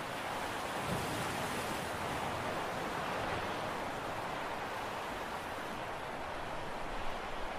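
Steady outdoor wash of wind and sea, an even hiss with no distinct engine note, with a couple of small bumps near the end.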